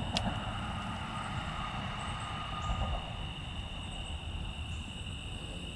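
Crickets and other insects trilling in a steady high chorus over a low background rumble, with a single sharp click just after the start.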